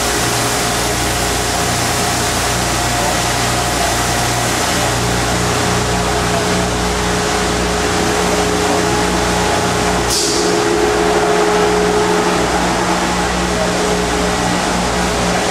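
Spinner hanger shot blast machine and its plant running, a loud, steady machinery noise with a constant hum, as the machine's curved door rotates shut; a short hiss sounds about ten seconds in.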